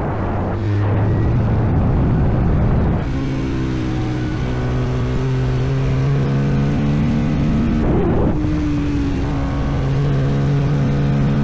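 CFMoto Papio XO-1/SS motorcycle engine running steadily on the move, after a rough rushing noise in the first three seconds. The engine note shifts a little about eight seconds in.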